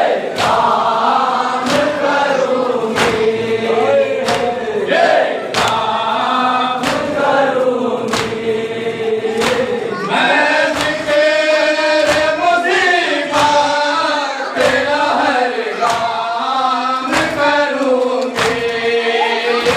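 A group of men chanting a noha in unison, kept in time by the regular sharp slaps of open hands beating on chests (matam), about one slap a second.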